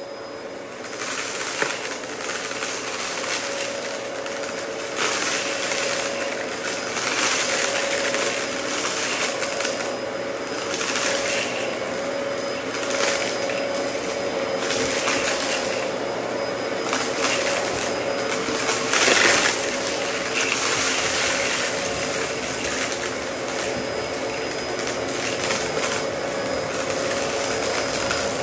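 Dyson DC14 upright vacuum running with a steady motor whine while its brushroll crunches and rattles through scattered small debris on carpet. The crunching comes in surges as the vacuum is pushed back and forth.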